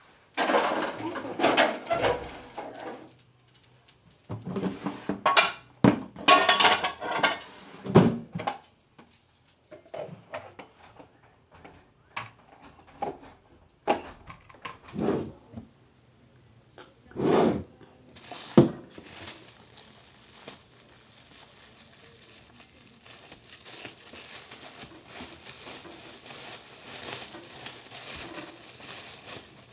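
Ceramic plates clattering, knocking and scraping as they are hand-washed at a stainless steel sink, with several sharp knocks past the middle. The last third is quieter, with faint rustling.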